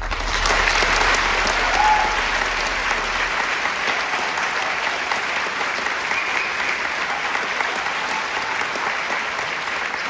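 Concert audience applauding as the final chord of a song cuts off, the clapping swelling to its loudest in the first two seconds and then holding steady, with a few brief cheers over it.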